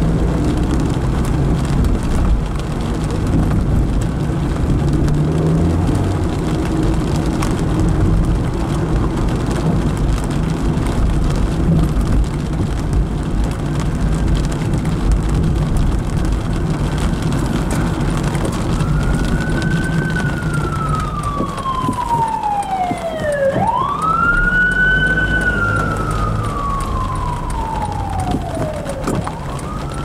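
Steady low rumble of a car driving on wet streets in the rain, heard from inside the cabin. About two-thirds of the way in, an emergency vehicle's siren starts wailing, its pitch falling and rising slowly over several seconds per cycle.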